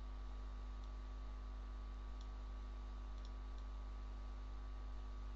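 Several faint computer mouse clicks spread through the second half, over a steady low electrical hum and hiss.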